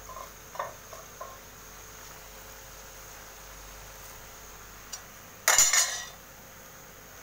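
A metal ladle clattering into a wide aluminium cooking pan heaped with greens: one loud rattling clatter about half a second long, about five and a half seconds in.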